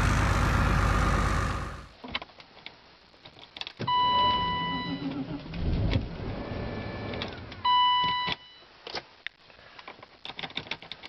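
A vehicle engine running loudly, cut off about two seconds in. Then, in a BMW 7 Series (E32) at −37 °C, sharp clicks of the key and switches, and a steady electronic warning beep sounding twice, about a second and then about half a second, with a short low whirring stretch between them.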